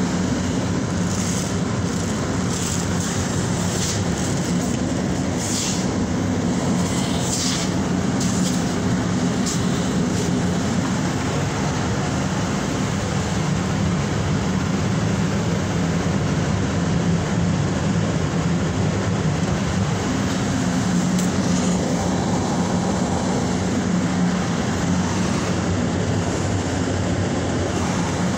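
Inside a moving Purple Line subway car: the steady running rumble of the train on the rails. A few brief high-pitched noises come in the first ten seconds.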